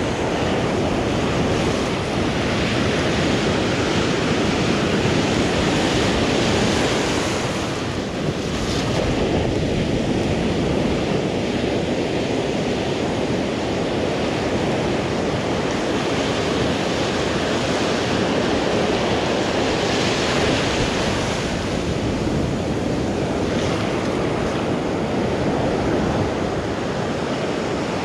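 Ocean surf breaking on a sand beach and washing through the shallows: a steady rush that swells louder a couple of times.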